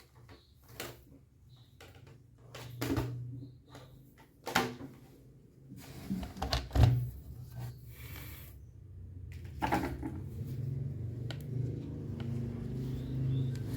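Scattered clicks and knocks from handling a laptop's hard plastic and metal parts during disassembly, the loudest about halfway through. A low hum builds in the last few seconds.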